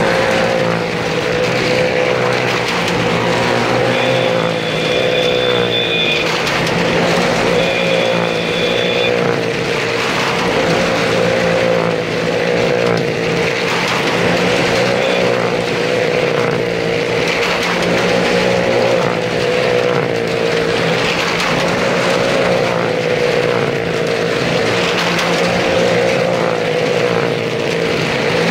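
Two motorcycles and a car running at speed round the wooden wall of a well-of-death drum, their engines sounding continuously with the pitch rising and falling every couple of seconds as they circle. A short high whistle sounds twice, about four and eight seconds in.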